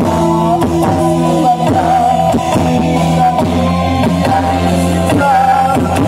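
Live electone band music played through a large PA sound system and heard from out on the street: a held melody line over a steady beat.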